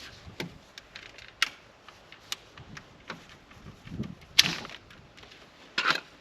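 Scattered clicks and light knocks from hands and tools working on a car door with its trim panel off, about five separate strikes, the loudest a little past the middle.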